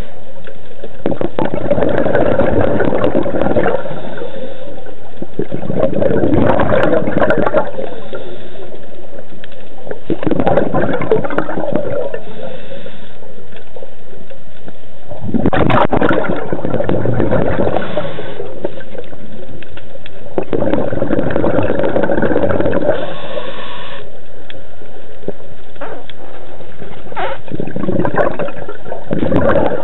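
Underwater recording of a scuba diver's regulator breathing: bursts of exhaled bubbles gurgling every few seconds over a steady underwater rush.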